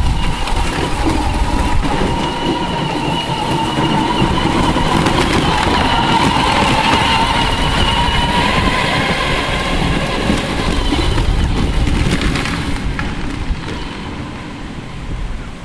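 Children's electric ride-on Polaris RZR running across the yard: a steady motor-and-gearbox whine over the rough crackle of its plastic tyres on dry leaves and dirt, fading after about twelve seconds as it moves away.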